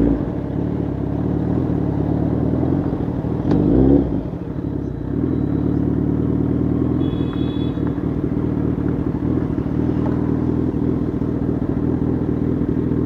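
Suzuki Hayabusa's inline-four engine running under the rider. It swells in a short rev about three and a half seconds in, then settles into steady running as the bike rides along.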